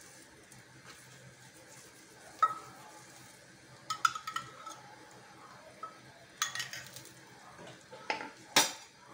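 Metal spoon and spatula clinking and scraping against a tawa griddle while a paratha is pressed and turned in ghee: sharp ringing clinks every second or two, the loudest near the end.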